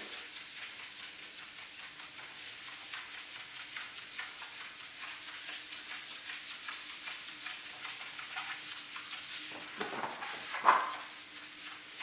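Foam applicator sponge rubbing over a wheel's surface in many short, quick strokes, spreading a ceramic coating; a short knock sounds near the end.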